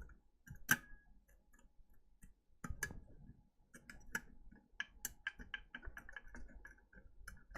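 Faint, scattered small clicks and ticks from the plastic housing of a JC PRO1000S programmer being pried apart by hand, with a quick run of tiny ticks in the second half as a spring-loaded part shifts.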